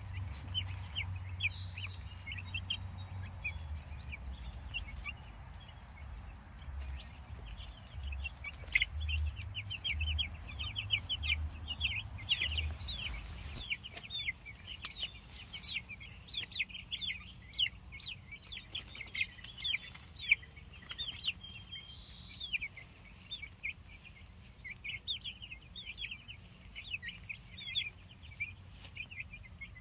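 A flock of two-week-old Cornish Cross meat chicks peeping continuously, many short high falling peeps overlapping. A low rumble lies underneath for about the first half.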